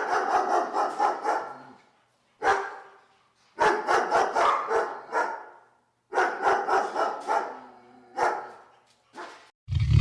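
Made-up creature vocalization: several bursts of rapid pulsing calls, each a second or two long with short silences between, then a deep, loud call starting right at the end.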